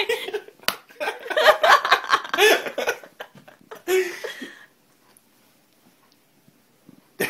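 A young woman laughing in bursts for about four and a half seconds, then falling quiet.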